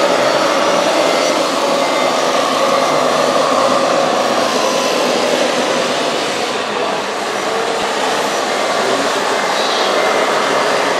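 Radio-controlled scale construction machines running: a steady whirring of small electric motors and hydraulic pumps, with a whine that wavers in pitch as the machines work.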